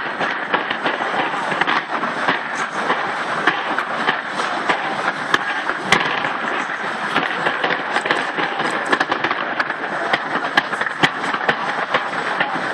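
Fireworks going off in rapid succession, a dense crackle of pops and sharp bangs, with one louder bang about six seconds in, over the continuous noise of a large crowd.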